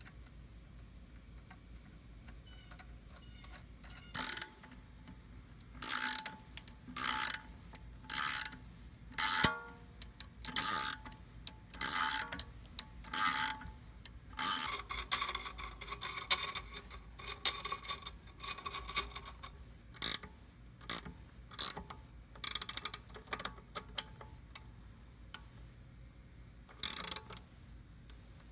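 Ratcheting combination wrench clicking in short bursts as it runs a nut up a threaded steel rod. The bursts start about four seconds in, about one every second or so, with a faster, longer run of clicking in the middle.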